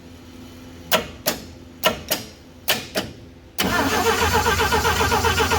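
Several sharp clicks in pairs, then a new direct-drive starter cranking a 1964 Dodge D100's engine steadily from a little past halfway, the engine not yet catching.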